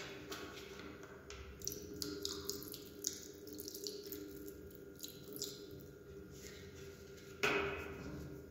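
Thin stream of water poured onto slices of raw deer meat on a plate, splashing and dripping with many small irregular patters. A louder knock comes about seven seconds in.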